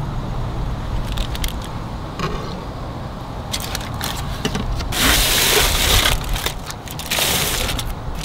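Aluminium foil crinkling and rustling as it is folded and crimped by hand, in scattered short crackles and two longer, louder bouts of crinkling about five and seven seconds in. A steady low rumble runs underneath.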